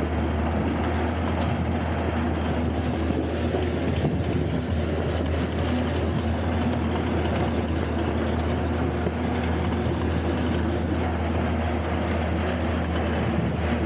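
Diesel engine of an opal agitator (a giant cement mixer used to wash opal dirt) running steadily, with a strong low hum, while the drum churns water and dirt.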